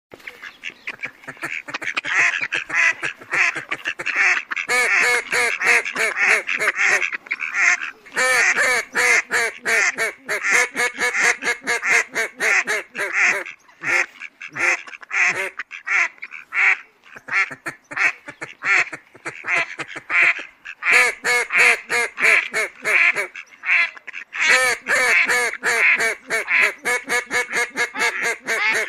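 Mallards quacking in fast, overlapping runs, several calls a second, with a few short lulls.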